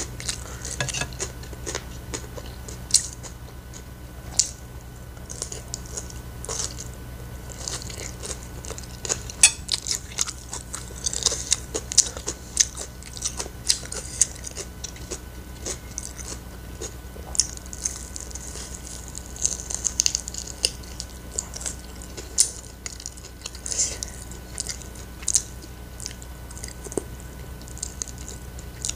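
Close-miked chewing of fried rice and fried chicken, with many short sharp clicks from a spoon against a ceramic plate and from the mouth, over a steady low hum.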